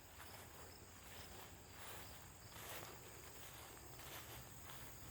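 Faint low rumble of a jet aircraft out of sight overhead, taken for a military plane, swelling slightly near the end, with insects chirping steadily in the background.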